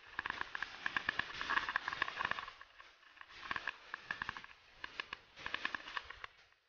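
Mountain bike rolling fast down a paved lane: a steady hiss of tyres and wind with rapid, irregular rattling clicks from the bike over the bumps. Loudest in the first couple of seconds, easing off about three seconds in and dying down near the end.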